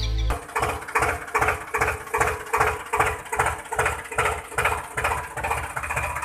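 Tractor engine chugging in a steady beat, about three pulses a second, begins about a third of a second in, after music cuts off.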